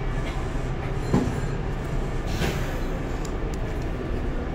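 Kobe Municipal Subway Seishin-Yamate Line train running, heard from inside the car: a steady low rumble of wheels and motors, with a sharp click about a second in and a brief hiss about two and a half seconds in.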